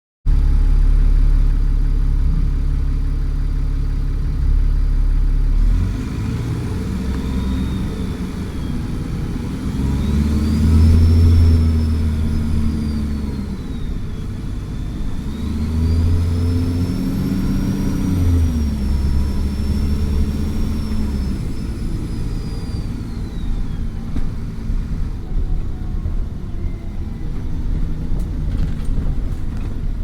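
Alexander Dennis Trident Enviro400 double-decker bus's diesel engine, running steadily, then pulling hard at full throttle twice, the engine note rising and falling each time with a high turbo whistle rising and falling along with it.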